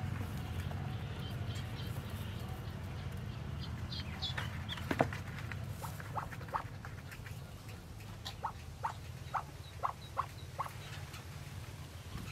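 Straw nesting material rustling as a hand works through a nest under a broody hen, with scattered short peeps from the yellow ducklings she is brooding, and a sharp click about five seconds in.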